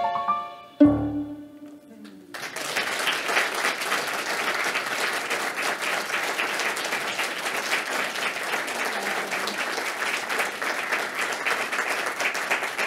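A violin and electric piano piece ends on a final held chord that dies away. About two seconds in, an audience breaks into steady applause.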